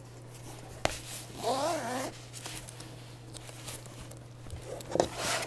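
Handling noise of a neoprene laptop sleeve moved about close to the microphone: rustling and rubbing, with a sharp knock about a second in and another near the end. A short wavering vocal-like sound comes in between.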